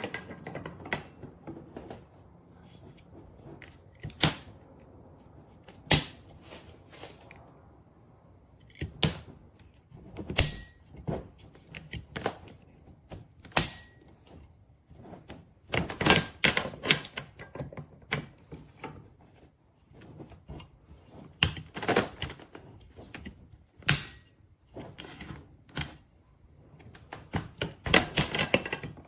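Irregular clicks, snaps and knocks of a quick-release octagon softbox being handled, its umbrella-style frame snapping open and closed, with quick runs of clicks about halfway through and near the end.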